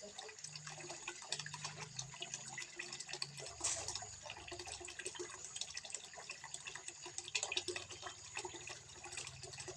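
Water trickling and splashing into a small fish pond: a steady run of water with an irregular patter of drips.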